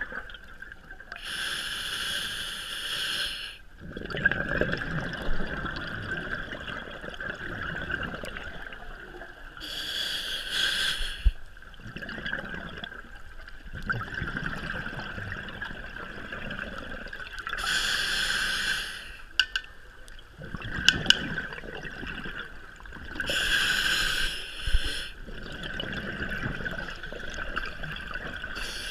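Scuba diver breathing through a regulator underwater: four hissing inhalations about every seven seconds, each followed by the bubbling rumble of an exhalation.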